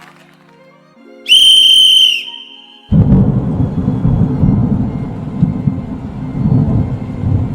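A whistle blast lasting about a second, a single high shrill tone, followed after a short gap by a long, loud, low rumble like thunder.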